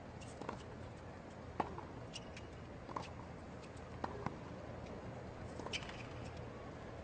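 Tennis ball struck back and forth in a rally on a hard court: sharp racket hits and bounces about every second or so, with a couple of short high shoe squeaks, over a steady low background hum.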